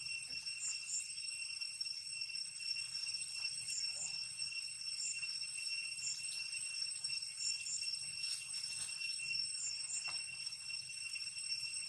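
Steady high-pitched drone of insects, several unbroken tones held together, with short high chirps recurring irregularly above it.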